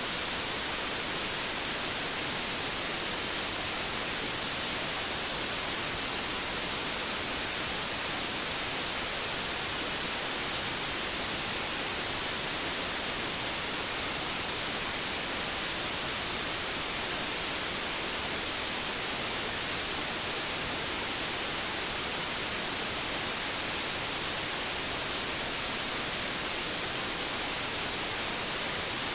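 Steady white noise: an even, unbroken hiss, strongest in the high frequencies.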